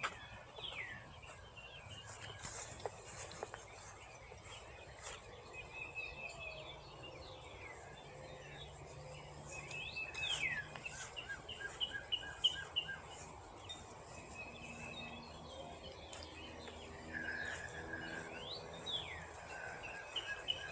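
Several birds singing and calling: quick rising and falling whistles and runs of rapidly repeated notes, over faint steady outdoor background noise.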